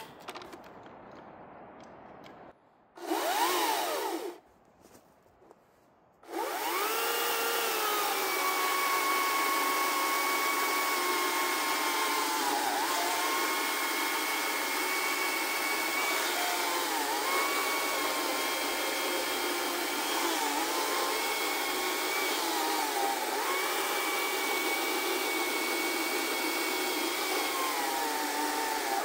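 Greenworks Commercial Optimus OCS800 cordless electric chainsaw running a 56-inch bar and chain. It revs briefly about three seconds in, then from about six seconds gives a steady high whine as it cuts through a large ash log. The pitch dips briefly several times as the chain bogs under load in the wood.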